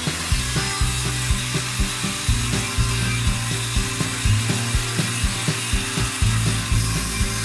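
Power saw cutting through 3/4 inch plywood, a steady rasping noise, with background music with a regular beat underneath.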